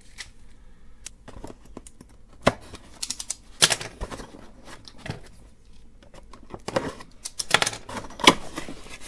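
A cardboard box being handled and opened by hand: irregular scrapes, taps and sharp clicks of the card, with a few louder snaps among them.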